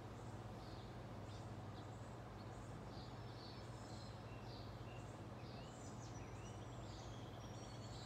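Birds chirping and calling at intervals over a steady low hum.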